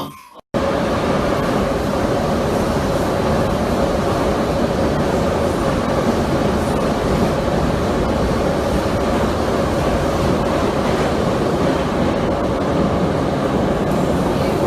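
A steady, loud rumbling noise with a constant mid-pitched hum, starting abruptly about half a second in and holding unchanged.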